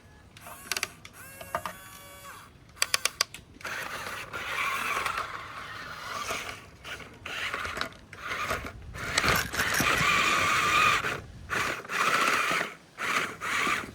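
Small electric motors and plastic gearboxes of a toy RC excavator whirring in short and long stretches, starting and stopping repeatedly, with a few sharp clicks and a quick clatter in the first few seconds.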